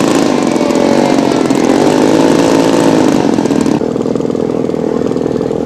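Radio-controlled scale model airplane's piston engine running loudly, its pitch swinging up and down as it passes or changes throttle. The higher part of the sound falls away about four seconds in.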